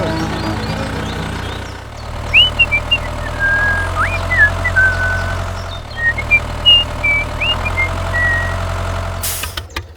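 A small engine running steadily at idle. Several short high whistling chirps come over it in two spells, in the first half and again in the second half.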